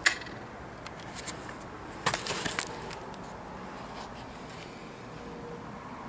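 Steady low background hiss with a few handling clicks and light knocks, the loudest cluster about two seconds in, as a handheld camera is moved over the pot.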